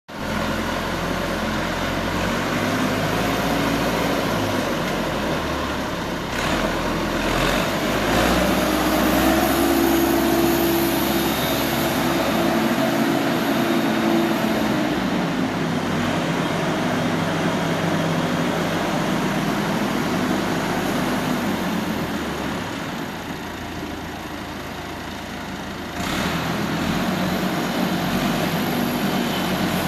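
Massey Ferguson 65 tractor engine running, revved up for several seconds in the middle before settling back toward idle, with a couple of abrupt changes in level.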